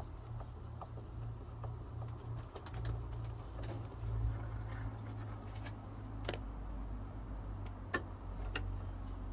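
Scattered small clicks, taps and ticks of hand tools working on a gas cupboard door as it is taken apart, a few sharper clicks in the second half, over a steady low hum.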